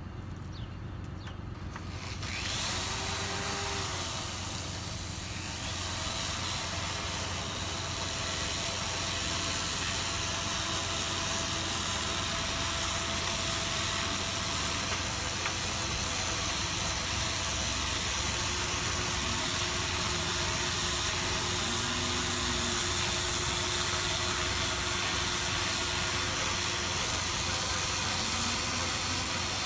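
Griot's Garage 6-inch orbital machine with a 120-grit hook-and-loop sanding disc starting up about two seconds in, then running steadily while sanding paint on steel.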